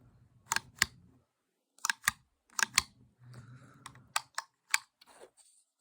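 Plastic Lego pieces clicking and knocking as they are handled and fitted together, reassembling the pistol's sliding parts: a series of sharp clicks, often in quick pairs, with light handling rustle between.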